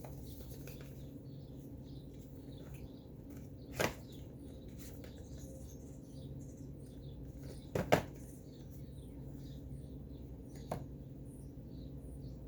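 Plastic lipstick tubes handled, giving three short sharp clicks a few seconds apart over a steady low hum; the loudest is a quick double click in the middle.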